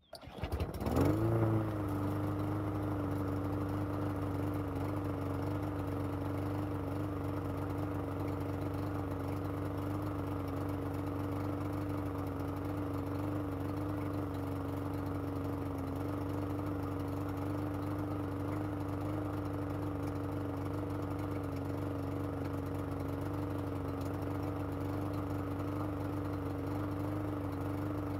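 Troy-Bilt TB230 lawn mower's small engine starting up, rising to speed within about a second and a half, then running at a steady governed speed on its newly replaced carburetor.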